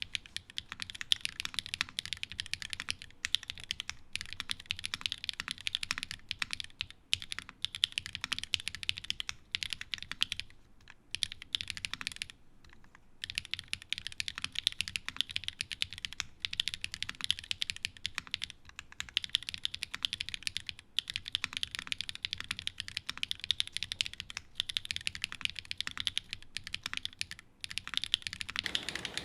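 Continuous fast typing on a mechanical keyboard with SW x Gateron Deepping 4.0 linear switches (nylon housings, POM stems) in an O-ring-mounted FR4 plate, with GMK keycaps. It is a dense stream of crisp key clacks as each key bottoms out, with two brief pauses about ten and twelve seconds in.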